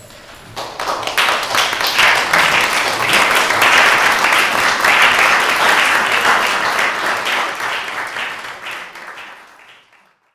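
Audience applauding: the clapping starts about half a second in, builds quickly, holds, then thins out and dies away near the end.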